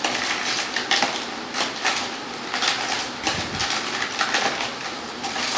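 A metal spoon stirring toy plastic fruit pieces in a plastic bowl, making a steady run of irregular clicks and clatters.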